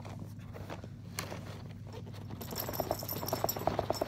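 Cardboard display box being handled and its box lifted off its cardboard base, with a fast rasping scrape of cardboard sliding on cardboard starting about halfway in.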